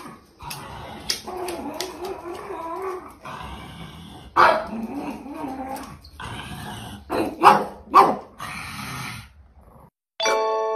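A pug vocalizing: drawn-out, wavering dog sounds broken by sharp barks about four and a half, seven and a half and eight seconds in. Near the end a bright chiming tune starts.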